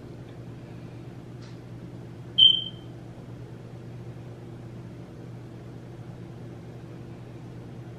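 Steady low electrical hum, with a single short, bright ding about two and a half seconds in that rings off quickly.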